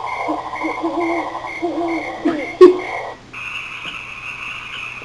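A sound-effect recording plays from the computer with a pulsing pattern, while girls' voices imitate it with sliding vocal noises; a sharp loud click comes about two and a half seconds in. About three seconds in the recording cuts abruptly to a different, steady high-pitched sound, a recorded frog chorus.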